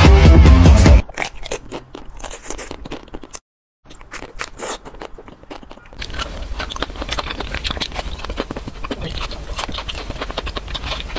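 About a second of loud music, cut off abruptly, then crunchy biting and chewing of ice cream bars: many short crackles and snaps, with a brief gap and growing denser in the second half.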